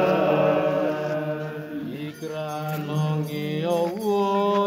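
Slow religious chanting in long held notes that step up and down in pitch.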